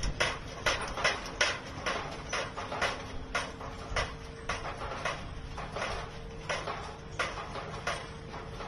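An irregular run of sharp clacks or knocks, about two a second, growing fainter near the end, over a faint steady hum.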